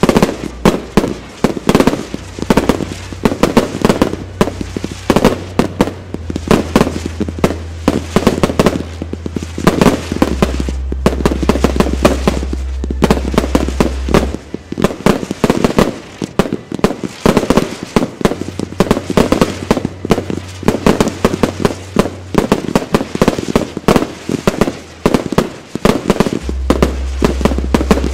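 Fireworks display firing nonstop: a dense run of bangs and crackling bursts, many a second, as shots go up and break overhead.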